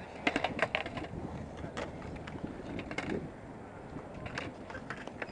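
Skateboards on concrete: wheels rolling with sharp clacks of boards striking the concrete, a quick cluster in the first second and a few more spread through the rest.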